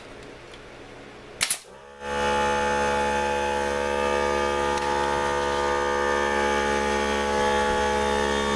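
Two quick pneumatic nail gun shots about one and a half seconds in. Then the air compressor motor starts and runs with a steady hum, refilling after the nailing.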